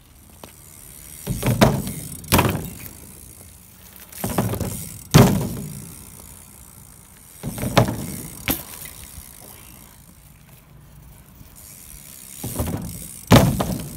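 BMX bike riding on rough, cracked concrete: tyre and frame rattle swells four times, each time with a sharp knock.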